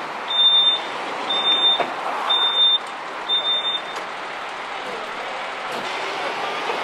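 A tow truck's backup alarm giving four high-pitched beeps about a second apart, stopping about four seconds in, over steady vehicle noise.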